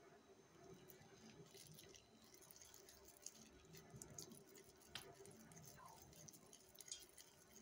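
Faint, soft squishing and scattered light clicks of hands rolling raw beef mince into small meatballs, over a faint steady hum.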